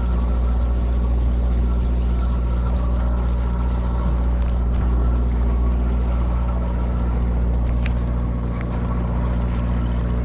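Engine of a sportfishing boat running steadily: a low, even drone.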